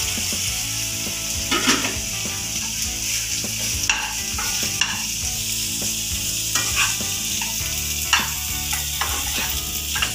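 Cooked rice sizzling in hot oil in a nonstick kadai while a perforated steel ladle stirs and tosses it, with a steady hiss and scattered short scrapes and clinks of the ladle against the pan.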